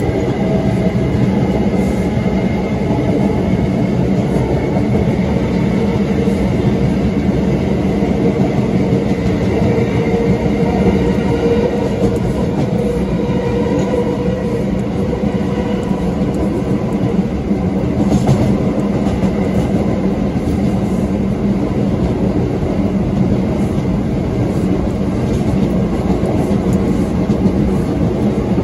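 Bombardier R179 subway car with MITRAC AC traction propulsion running along the line: a loud, steady rumble of wheels on the rails, with faint steady tones from the propulsion system above it.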